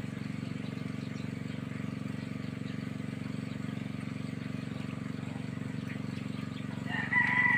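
Small gasoline-engine water pump running steadily, driving water down the pipe for jet drilling of the well. A short high-pitched call cuts in near the end.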